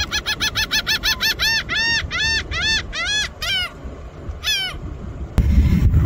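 Laughing gull giving its long call: a run of rising-and-falling 'ha' notes, about four a second at first, then slower and drawn out, with two last notes after a short pause. Near the end a sudden loud low rumble takes over.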